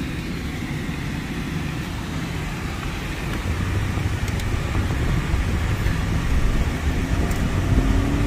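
Engine and road noise inside a moving vehicle's cabin: a steady low rumble that grows louder from about halfway through.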